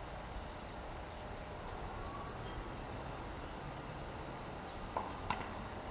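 Steady outdoor background hum at an open tennis court, with two short sharp knocks about a third of a second apart near the end.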